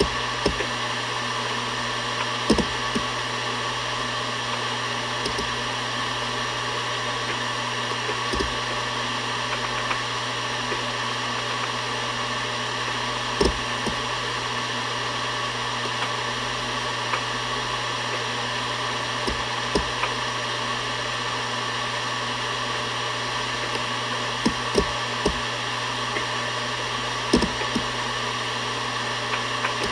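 Seagate Barracuda ES.2 ST31000340NS 7200 rpm hard drive spinning with a steady hum and whir, with scattered seek ticks from its head actuator now and then, a few close together near the end.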